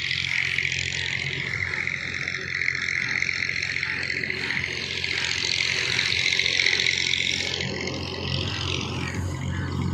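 A motor vehicle's engine running steadily under a steady high hiss.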